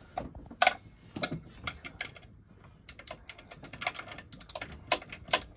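Irregular light metal clicks and taps as a raw water pump is fitted by hand onto a Perkins diesel and its mounting nuts are started on the studs.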